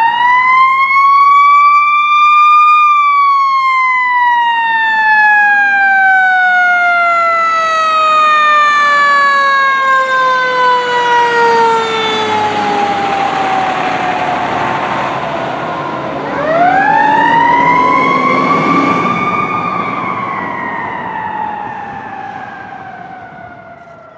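Fire truck siren on a KME rearmount ladder truck responding to a call, over the truck's engine and road noise. The wail rises, then falls slowly for about ten seconds; it rises again about sixteen seconds in and falls away, fading as the truck moves off.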